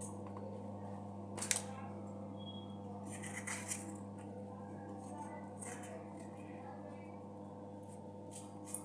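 A knife cutting through firm white vegetable held in the hand, pieces dropping onto a steel plate: short scraping cuts and clicks, the sharpest about a second and a half in and another near the end. A steady electrical hum runs underneath.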